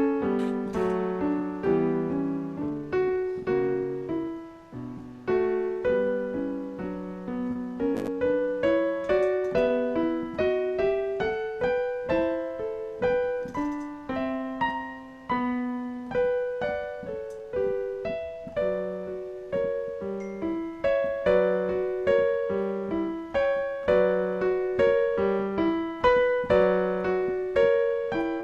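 Piano music: a steady flow of single notes and chords, each struck and fading, with no singing.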